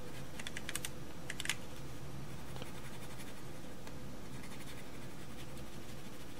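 A flat metal tool rubbing Scotch tape down over a decal on a plastic model kit, burnishing it so the tape will lift the decal off. A few small scratching clicks come in the first second and a half, then only faint ones, over a low steady hum.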